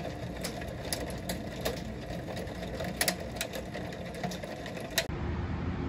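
Heavy rain hitting a window and the roof, with irregular sharp ticks that sound like hail. About five seconds in it cuts to a low steady hum.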